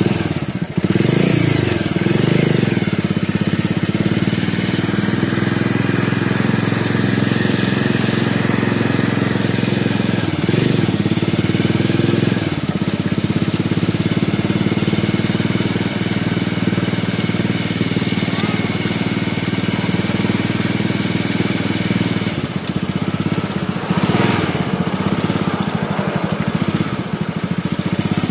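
Motorcycle engine running steadily while the bike is ridden along a road, its pitch rising and falling a few times as the speed changes.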